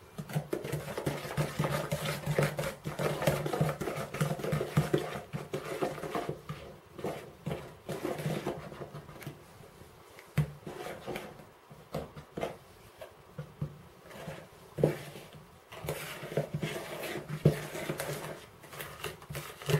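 Wooden spoon stirring flour into a stiff creamed fat-and-sugar mixture in a plastic mixing bowl: irregular scraping and clicking with dull knocks of the spoon against the bowl.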